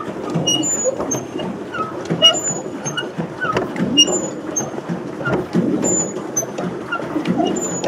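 Pedal boat under way: its paddle wheel churning and splashing the water, with short high squeaks repeating about once a second from the squeaky, rusty pedal mechanism.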